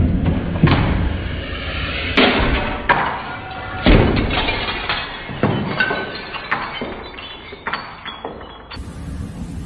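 A run of knocks and crashes as objects knocked off a high wall cabinet hit the floor and break, the loudest crash about four seconds in, with smaller clatters after it.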